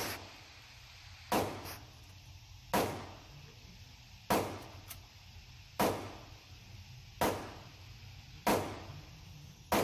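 Gunshots at an indoor range, seven in a steady, even rhythm of about one every second and a half, each sharp crack followed by a short echo.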